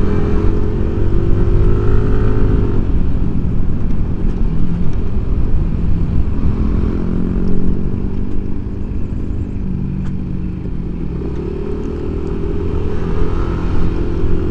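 Yamaha automatic scooter's engine running under way. The note drops about three seconds in and rises again near the end as the scooter picks up speed.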